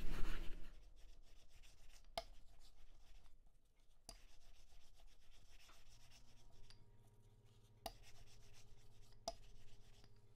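Wooden rolling pin rolling out flatbread dough on a floured pastry mat: a faint, soft rubbing, with a few light clicks.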